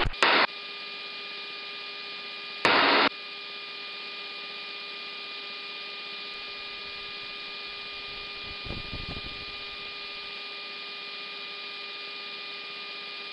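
Cockpit radio channel open between transmissions: a steady hiss with several faint, steady hum tones. A brief loud burst of static comes about two and a half seconds in.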